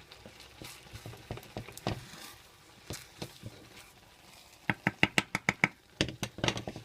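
Pot of basmati rice with butter on top crackling and popping on the stove as the last of its water cooks off. Scattered sharp pops build to a quick run of clicks about five seconds in, with a few more just after.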